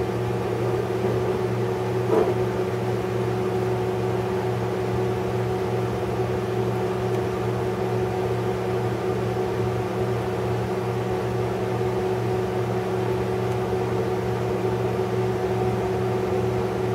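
Stick welder humming steadily while switched on and idling, with no arc struck yet, and one faint click about two seconds in.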